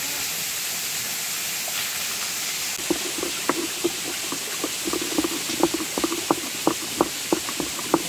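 Onions frying in oil in a cooking pan, a steady sizzling hiss. From about three seconds in, a spoon stirring the pan adds a run of irregular knocks and taps against the metal.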